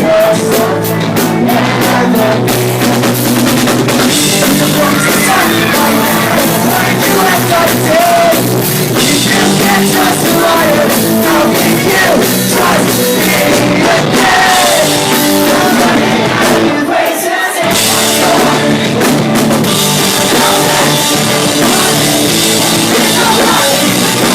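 Pop-punk band playing live: drums, distorted guitars and a sung melody. The bass and drums drop out for a moment about two-thirds of the way through.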